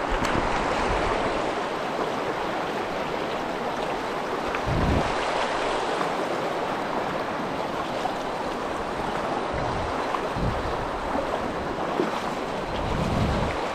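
Fast river current rushing over rocks, a steady wash of water noise, with a few brief low rumbles about five, ten and thirteen seconds in.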